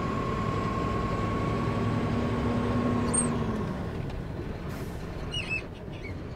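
Bharat Benz 3825 tipper truck's diesel engine running as the truck pulls away, heard from inside the cab. The engine note rises a little, then eases about three and a half seconds in, and the sound fades out near the end.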